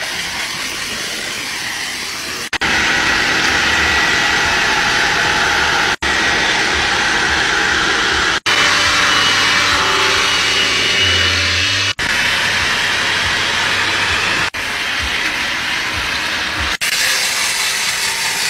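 Car-detailing machines running: the rushing hiss of a vacuum nozzle on seat fabric and of a steam jet. It comes in short bursts that cut off abruptly every two to four seconds.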